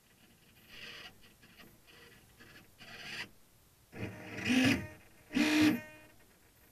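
Radio-control servo motors in a model sailboat's hull whirring in short bursts. The two loudest come about four and a half and five and a half seconds in, each about half a second long with a steady pitch.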